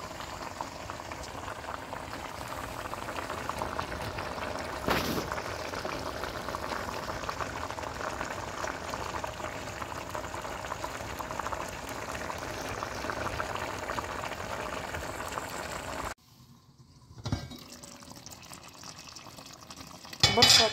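Dimlama of meat, potatoes, carrots and cabbage bubbling and sizzling steadily in its own juices on low heat, with no water added, at the start of a long braise. It cuts off suddenly about three-quarters of the way in. After that it is fainter, with a knock and a short, louder clatter near the end.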